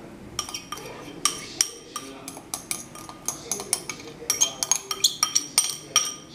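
A metal spoon clinks and scrapes against a small ceramic bowl in a quick, irregular run of sharp taps as the yeast mixture is scraped out of it.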